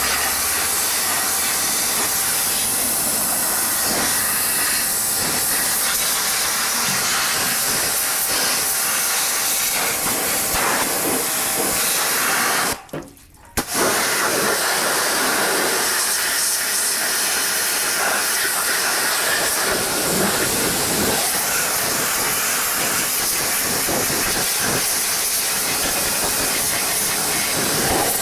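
Pressure-washer jet spraying water against a tractor's metal rear hitch: a steady, loud hiss that stops for under a second about halfway through, then starts again.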